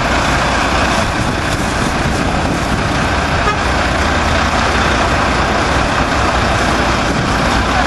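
Mack Granite cement mixer truck's diesel engine idling with a steady low rumble, heard close up.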